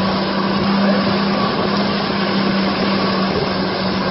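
Outboard motor running steadily at speed, under a constant rush of water and spray from the boat's wake.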